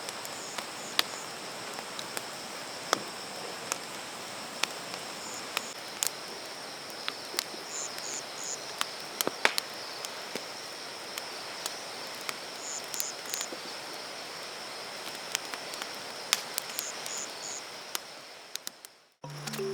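Outdoor insect chorus: a steady high buzz with little bursts of three quick chirps every couple of seconds, over scattered sharp ticks. It fades out near the end.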